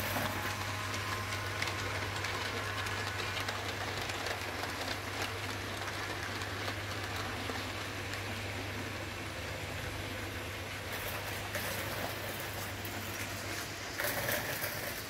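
Model trains running on the layout's track, among them a Rivarossi 0-4-4-0 Mallet pulling a long train of wagons: a steady rolling rattle of wheels on rail over a constant low hum.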